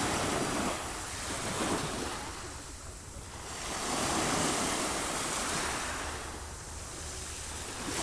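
Sea waves washing onto the shore, the surf swelling and drawing back every few seconds, over a steady low wind rumble on the microphone.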